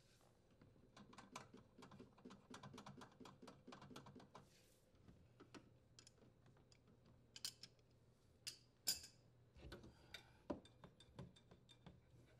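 Faint quick clicking for a few seconds, then a few scattered light clicks and knocks: the dishwasher's leveling legs being turned with a hand tool to lower the appliance.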